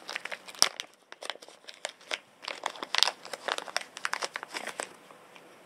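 Plastic packaging crinkling and crackling as it is handled: a quick, irregular run of small crackles that stops about five seconds in.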